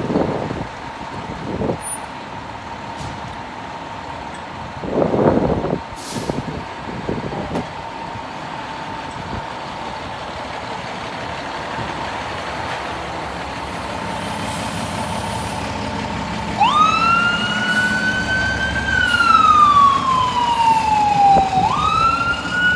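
Fire ladder truck's diesel engine running as it pulls out, with a few short surges early on. About two-thirds of the way in, its siren starts a slow wail: up, down, and up again near the end.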